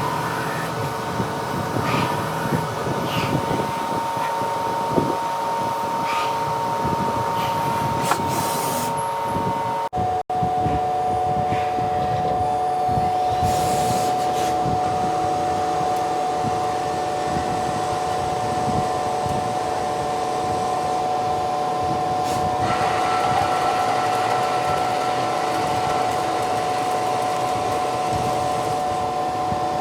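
CNC lathe running, a steady whine from the machine over a constant whirring cutting noise. After a momentary cut-out about ten seconds in, the whine goes on at a lower pitch.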